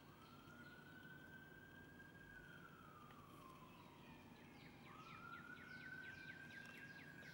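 Faint emergency-vehicle siren wailing: its pitch rises, holds, sinks slowly, then rises again a little under five seconds in. A run of quick falling chirps sounds over it near the end.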